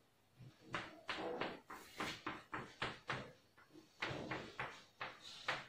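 Chalk tapping and scratching on a chalkboard in a quick run of short strokes, about three or four a second with a brief pause past the middle, as rows of short tick marks are drawn.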